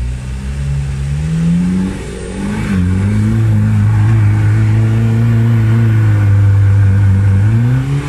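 Toyota Land Cruiser buggy's 15B four-cylinder diesel engine revving hard under load as it climbs a muddy bank, tyres spinning. The revs climb over the first two seconds, dip briefly, are held high from about three seconds in, and rise again near the end.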